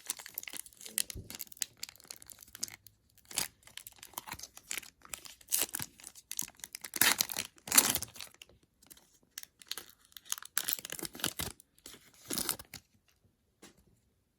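A pack of trading cards being torn open: the wrapper tearing and crinkling in a run of irregular rustles, loudest about seven to eight seconds in, then dying away near the end.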